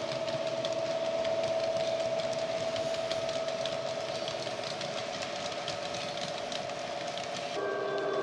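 ESU LokSound digital sound of a model Class 66 diesel locomotive, played through a small onboard speaker: the engine runs at a steady note while the model wagons' wheels tick over the track. Near the end the engine note changes abruptly to a lower pitch.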